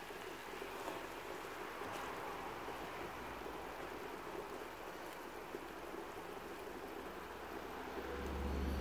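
Vegetable sauce sizzling steadily in a frying pan while a wooden spatula stirs it, with a few faint scrapes. A low rumble comes in near the end.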